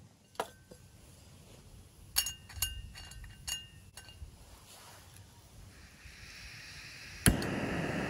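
A few light metallic clinks of camp cookware being handled. Then a gas hiss rises, and near the end a sharp igniter click lights a small canister gas stove, whose burner runs on with a steady rushing noise.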